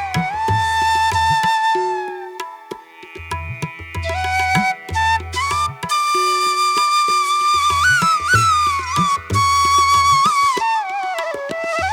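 Instrumental background music: a sliding flute melody over a low bass pulse and light tabla-style drum hits. It dips quieter for a moment about three seconds in.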